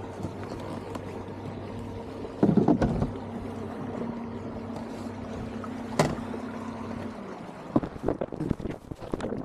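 Steady low hum of a boat motor that cuts off about seven seconds in. A loud knock and rattle come about two and a half seconds in and a sharp click at six seconds, and scattered knocks and splashes follow after the hum stops.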